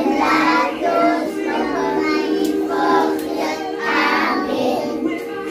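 Children singing a song over a musical accompaniment of steady held notes.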